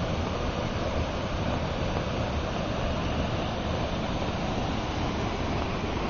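Steady roar of a mountain waterfall, an even rush of falling water with some low wind rumble on the microphone.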